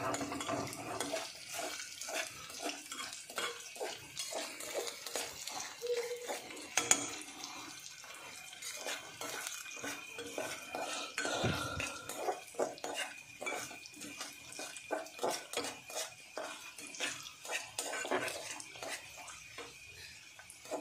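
Spoon scraping and clinking against the side and bottom of an aluminium saucepan as chopped nux vomica is stirred in ghee: repeated irregular strokes, several a second, with one sharper knock about seven seconds in.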